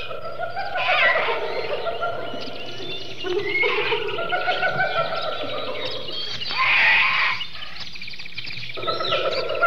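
Jungle animal sound effect: a dense, layered mix of bird calls and chirps over steady trilling. Louder calls rise out of it about a second in and again around seven seconds, and the lower calls drop out briefly shortly before the end.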